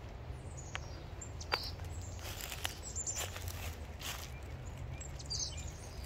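Outdoor ambience with brief chirps from small birds, a few sharp clicks, and a low steady rumble underneath.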